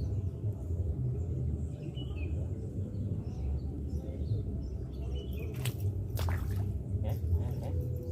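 Outdoor ambience: a steady low rumble, with small birds chirping now and then and a few sharp clicks a little before the end.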